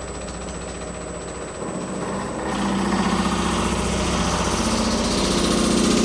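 Power hammer running, pounding a sheet-metal panel in a fast, even rhythm that grows louder and busier about two to three seconds in.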